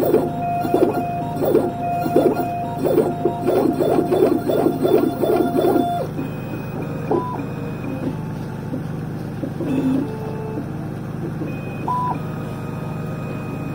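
Dental milling machine cutting a porcelain block with two burs under water spray: a steady whine with repeated grinding pulses, easing about six seconds in to a quieter running hum with a few short beeps.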